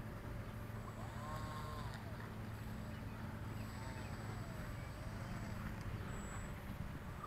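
Faint hum of a radio-control plane's electric motor on landing approach, easing off about five or six seconds in as the throttle comes back. A few faint rising-and-falling whistles sound over it.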